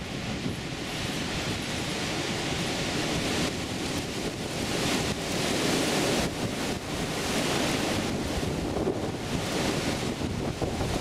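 Gusty wind rushing through leafy shrubs and buffeting the microphone, growing stronger about three and a half seconds in and surging in gusts after that.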